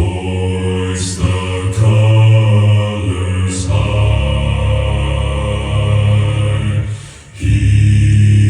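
Choral music: deep voices holding long, chant-like notes over a low drone, dropping away briefly about seven seconds in and then coming back.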